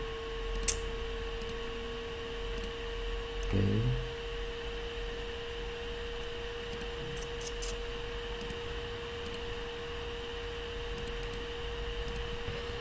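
A steady electrical hum at one pitch runs under the recording. Over it come a sharp computer-mouse click about a second in and a few fainter clicks later. A brief low murmur from the presenter comes a little after three seconds.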